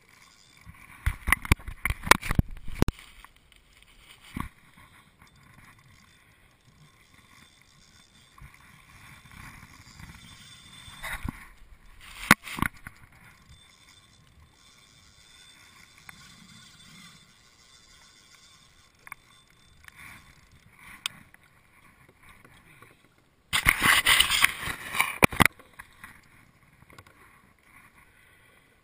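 Close handling noise from a spinning rod, reel and soft plastic lure held right by the microphone: a cluster of knocks and rubbing about a second in, a short knock-and-scrape around twelve seconds, and a louder two-second stretch of scraping and rattling near the end, with faint quiet between.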